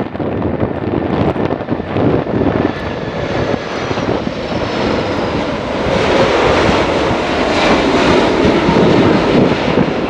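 Boeing 747-400F four-engine jet freighter on final approach, its engines running at approach power as it passes low and flares, with a faint high whine that falls in pitch. The sound grows louder about halfway through as the aircraft comes closest.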